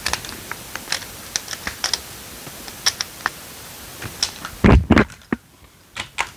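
Small clicks and rattles as a Benjamin Armada PCP air rifle is handled and reloaded, then one loud, low-pitched shot through a 3D-printed suppressor about three-quarters of the way in, followed by a couple of lighter knocks.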